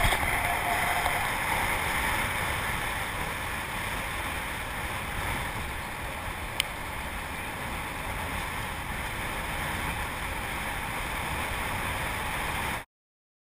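Steady rush of wind over a roof-mounted camera, mixed with tyre noise from a car driving along a dirt road, with a single tick about halfway through. The sound cuts off abruptly near the end.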